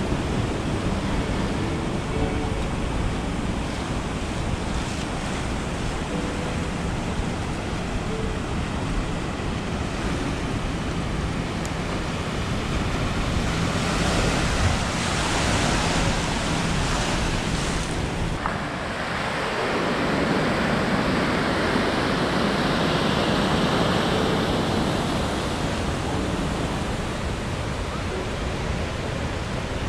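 Ocean surf breaking and washing up the beach, with wind on the microphone. The wash swells louder twice, around the middle and again a few seconds later.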